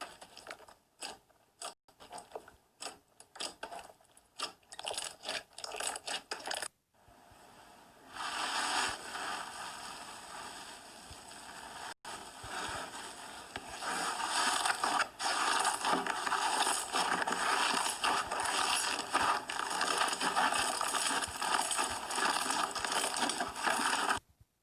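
Slime being squeezed and worked by hand, popping and crackling: separate sharp pops for the first several seconds, then from about eight seconds in a dense, continuous crackling that stops abruptly near the end.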